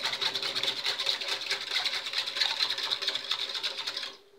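A small metal whisk beats liquid gelatin with cream and milk in a glass bowl: a fast, steady clatter of wires against the glass that stops near the end.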